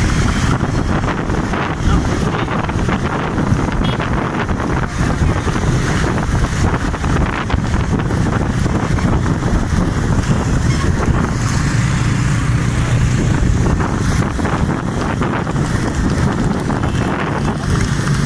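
Wind buffeting the microphone from riding along at speed, with motorcycle engines running underneath.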